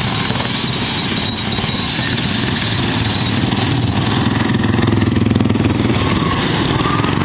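Racing lawn mower engine running at high revs, growing a little louder about four seconds in.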